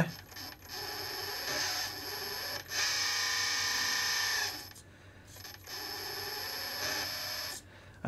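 Electric hydraulic pump of a Kabolite K961-100S RC excavator running with a steady whine while the arm is moved into position. It runs in three stretches, louder in the middle one, with a short break about five seconds in.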